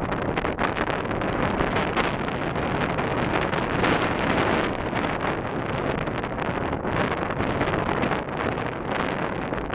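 Wind buffeting the microphone, a dense rushing rumble that jumps up suddenly at the start and stays strong throughout.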